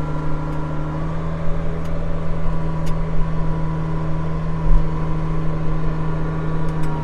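Vehicle engine running at a steady speed, a constant low drone heard from inside the cab.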